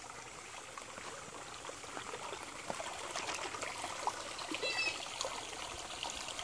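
Shallow rocky creek trickling and babbling over small rapids, growing a little louder past halfway through. A brief high chirp sounds about three-quarters of the way in.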